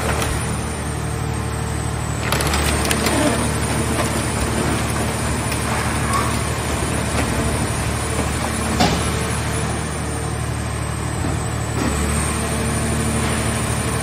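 Hydraulic scrap car baler running, its hydraulic power unit giving a steady low hum as the lid swings open over a crushed car shell, with a few sharp metal clanks and creaks.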